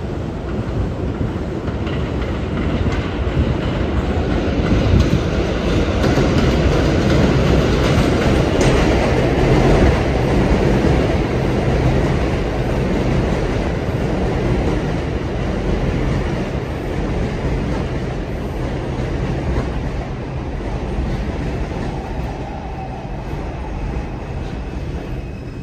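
New York City subway 4 train of R142 cars running into the elevated station: the rumble and clatter of steel wheels on the rails and elevated structure builds to a peak, then slowly eases as the train slows, with a faint squeal near the end.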